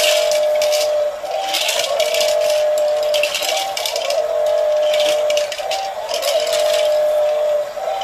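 Toy cement mixer drum rattling as clear plastic pieces tumble inside it and pour out down the chute, the rattle swelling about every two seconds with each turn. Under it runs the truck's looping electronic sound effect, a steady tone that steps up briefly with each repeat.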